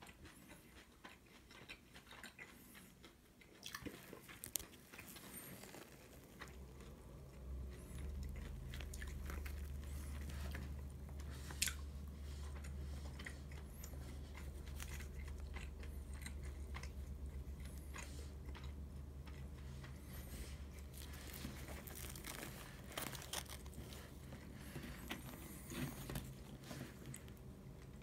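Crusty baked ciabatta being torn apart by hand, its crisp crust crackling and crunching in many short, irregular crackles. A low steady hum sits underneath from several seconds in.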